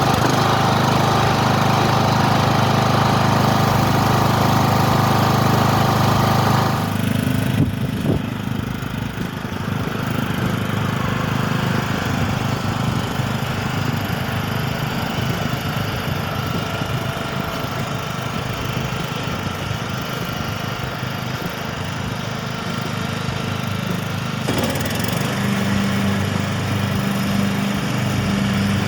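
Kohler Courage 19 single-cylinder engine of a Cub Cadet LT1042 riding mower running steadily. Its sound changes about seven seconds in and again near the end.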